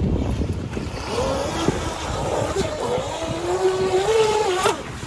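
Brushless electric motor and propeller of a 1st Racing FTO10 RC racing boat (upgraded Leopard 2000 KV motor on 3S) whining at speed. The pitch wanders up and down with the throttle, climbs sharply and cuts off near the end. Wind on the microphone is heard in the first second.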